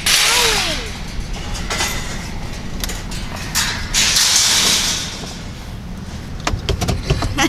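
Pickup truck cab while rolling slowly over dirt: a low, steady engine and tyre rumble, two bursts of hiss, and a quick run of clicks and knocks near the end.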